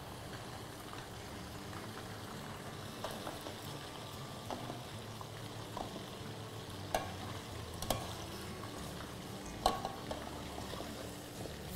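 Food sizzling as it fries in a pan on the stove, a steady hiss, while a spoon stirs it, with a few sharp knocks of the spoon against the pan, the loudest three in the second half.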